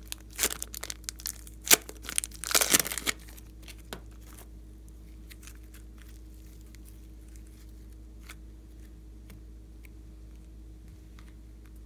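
Thin plastic piping bag crinkling and tearing as it is peeled off a lump of thick purple slime, in a quick run of sharp crackles over the first three seconds. After that only faint, scattered small clicks as the slime is handled.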